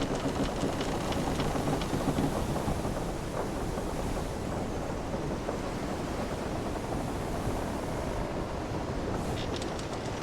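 Wooden sailing ship at sea: a steady rush of ocean waves and wind with the ship's timbers creaking, and a few short clicks near the end.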